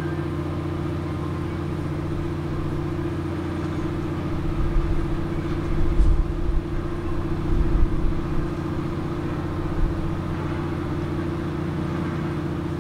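An engine idling with a steady, even hum. Uneven low rumbles come and go in the middle.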